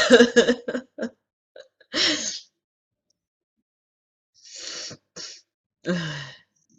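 A person having a sneezing fit: a loud, sharp sneeze right at the start, another about two seconds in, and a third near the end, with fainter breathy sounds between them.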